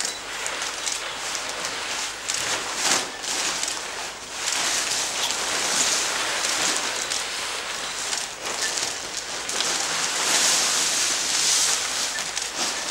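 Plastic sheeting rustling and crinkling as it is handled and moved, a steady crackling hiss made of many small crackles.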